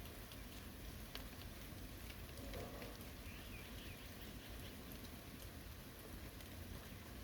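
Steady rain falling on a forest, with scattered individual drops ticking through it. A faint, wavering animal call rises above the rain briefly about three seconds in.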